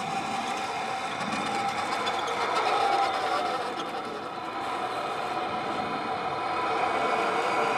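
Tamiya 1/14 Scania 770S RC truck driving, a steady mechanical hum of its electric drive motor and gearbox mixed with the simulated diesel engine sound of its MFC-03 sound unit. The motor is new and a little noisy. The sound gets louder toward the end as the truck comes nearer.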